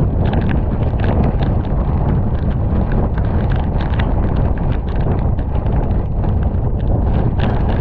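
Hurricane eyewall wind buffeting the microphone with a heavy, continuous low rumble, while rain pelts the 360 camera in many irregular sharp taps.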